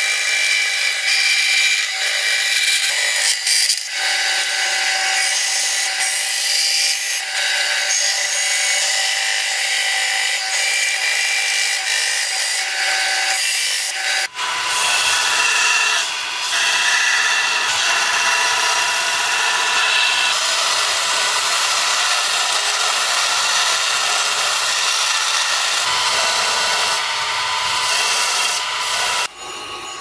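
Bandsaw cutting through brass plate: a steady, grinding blade-on-metal noise. The sound changes abruptly about halfway through.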